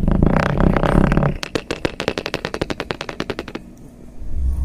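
Sand being pressed into a glass with a wooden tamper: a crunchy squish, then a quick run of fine crackling clicks that stops about three and a half seconds in, and a low thump near the end.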